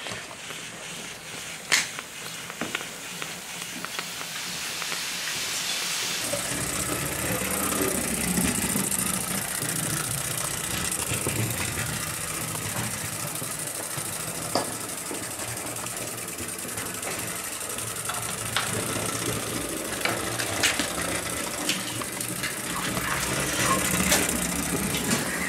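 Home-built model steam locomotive: a steam hiss builds up about five seconds in, then its small engine runs with a steady mechanical clatter, broken by occasional sharp clicks.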